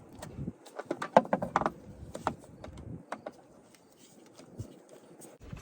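Scattered small clicks and taps of metal parts being handled while a replacement carburetor and gasket are fitted to a lawnmower engine, busiest in the first couple of seconds and then sparse.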